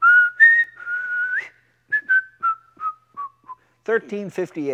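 A person whistling a short tune while waiting, with held notes and little slides, then a run of quick notes falling step by step. A man starts speaking near the end.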